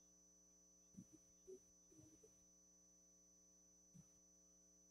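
Near silence: a faint steady electrical hum with a few faint brief blips, as the remote guest's video-call audio drops out.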